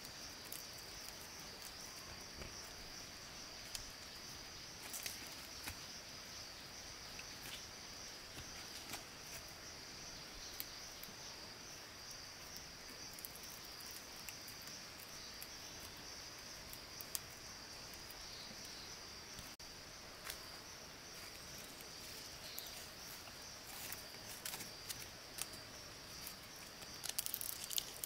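Steady high-pitched insect chorus, with scattered small clicks and knocks that come thicker near the end.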